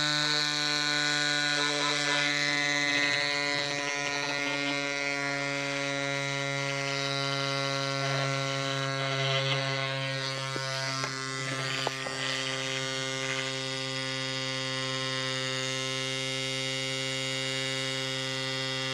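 Cycplus AS2 Pro electric mini pump running steadily as it inflates a road bike tire: a constant buzzing motor hum, with a few faint knocks around the middle.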